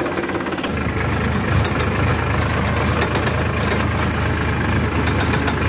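Powertrac Euro 50 tractor's three-cylinder diesel engine running steadily. Its low note grows louder a little under a second in as the tractor moves off along the lane.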